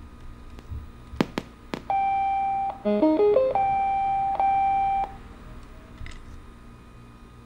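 Prototype Bluetooth speaker in a smart-bottle cap powering up. A few sharp clicks, then a long steady beep, a quick run of rising notes, and a second long beep: its start-up and pairing prompt tones.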